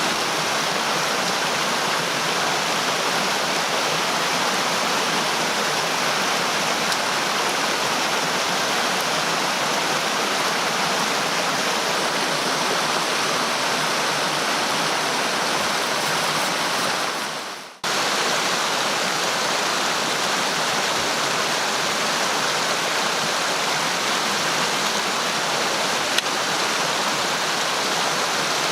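Steady, dense rushing water. A little before the two-thirds mark it fades away sharply, then cuts straight back in at full level.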